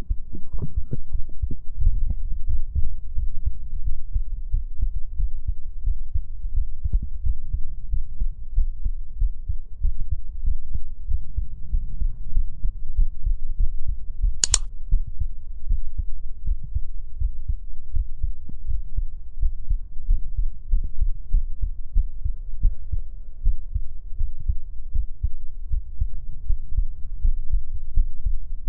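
Heartbeat picked up through a listening device held against the body: a steady run of low thumps, with one sharp click about halfway through.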